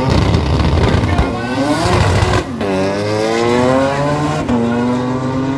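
Drag race car launching and accelerating hard, its engine note climbing and dropping back at two gear changes, about two and a half and four and a half seconds in.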